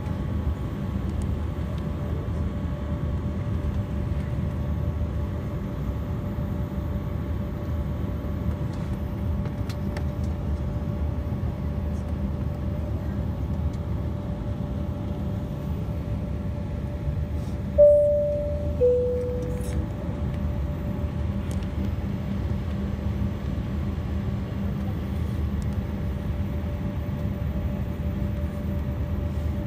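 Airliner cabin noise while taxiing: the steady hum of the jet engines, with a two-tone high-low cabin chime a little past the middle.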